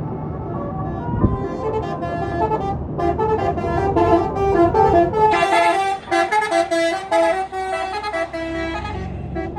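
Tour bus's Basuri "telolet" multi-tone air horn playing a melody of stepped notes over the bus engine's rumble, growing louder about three seconds in and loudest from about five to seven and a half seconds.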